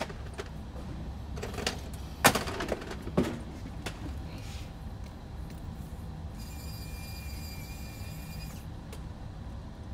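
A few knocks and clatters of tools on a workbench, the sharpest about two seconds in, then a small electric screwdriver whirring steadily for about two seconds, backing screws out of a quadcopter frame.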